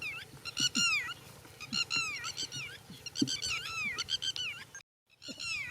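Short, high-pitched animal calls in quick runs of three or four, each call falling in pitch, repeating about every second and a half. The sound cuts out completely for a moment shortly before the end.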